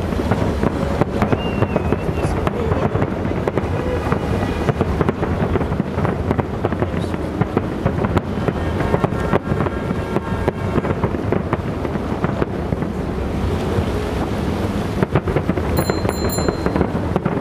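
Fireworks display: a dense, unbroken stream of bangs and crackles from aerial shells bursting over a low rumble.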